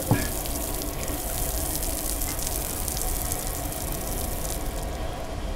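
Outdoor beach shower running steadily, its water spraying over a man and splashing onto the wet concrete floor. A brief vocal sound comes right at the start.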